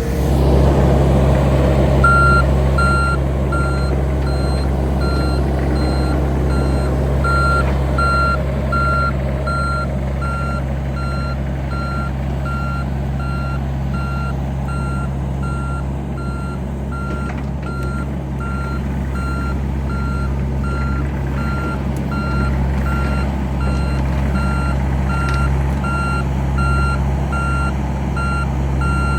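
Heavy earthmoving machine's engine running steadily, with its backup alarm beeping at an even pace from about two seconds in.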